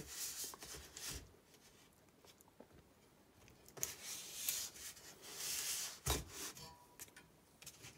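Hands sliding and handling metal engine and clutch parts on a cardboard-covered workbench. There is a stretch of rubbing and scraping at the start, another in the middle, and a single knock about six seconds in.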